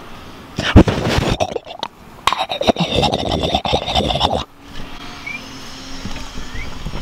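A sharp knock about a second in, then a few seconds of irregular scraping and rustling that stops suddenly, leaving a quieter stretch.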